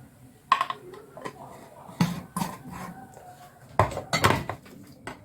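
A spoon knocking and clinking against a bowl while honey is added to chopped garlic and dried figs for mixing. There are about seven separate clinks, several of them close together near the end.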